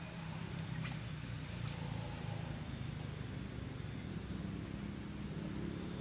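Steady high-pitched drone of insects over a low, even rumble, with a few brief bird chirps about one to two seconds in.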